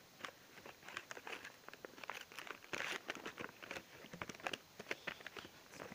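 Irregular light clicks and crinkly rustling from hands handling objects close to the microphone.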